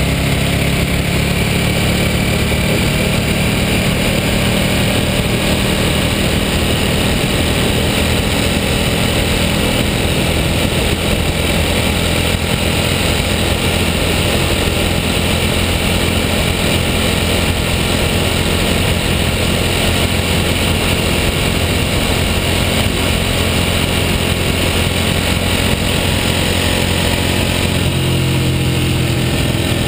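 A Ducati superbike's L-twin engine running at speed under steady throttle, over a constant rush of wind and road noise. The engine note shifts near the end as the bike leans into a bend.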